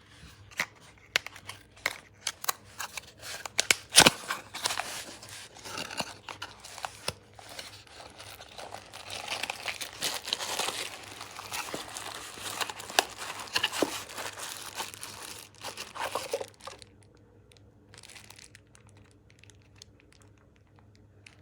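Handling noise: a run of sharp clicks and knocks, the loudest about four seconds in, then a long stretch of crinkling and rustling that stops about three-quarters of the way through, leaving only a faint low hum.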